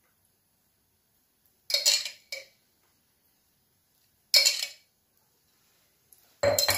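A metal spoon clinking against steel cookware four times, the first two close together and the rest about two seconds apart, each a short ringing knock, as spoonfuls of ghee are scooped into the pan.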